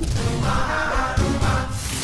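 Dramatic film background score with a heavy low end. Near the end a shattering crash begins.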